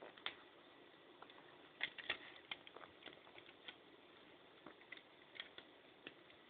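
Near silence broken by faint, scattered small clicks and taps, handling noise close to the microphone.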